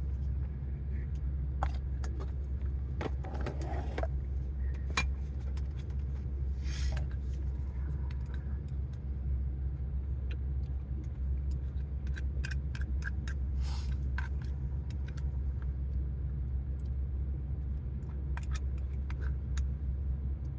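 Steady low rumble of a truck idling, heard from inside the cab, with scattered small clicks and rustles.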